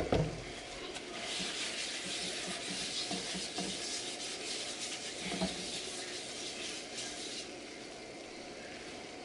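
A paper towel rubbed around a square nonstick griddle pan, spreading cooking oil over it, a scratchy wiping that stops after about seven seconds. A brief knock at the very start.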